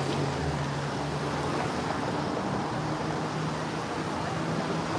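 Steady outdoor city background noise with a low, even hum running under it.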